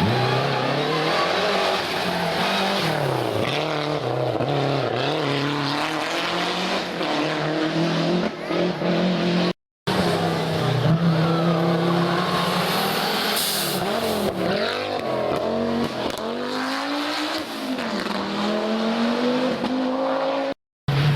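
Historic rally cars driven hard on a stage, engines revving up and falling back again and again through gear changes and corners. The sound breaks off briefly about ten seconds in, then another car is heard doing the same.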